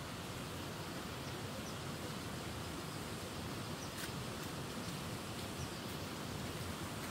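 Steady outdoor background hiss, with a few faint, short high chirps and a faint click about four seconds in.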